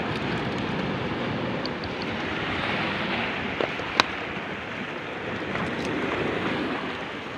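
Steady wash of sea waves with wind on the microphone, and a single sharp click about four seconds in.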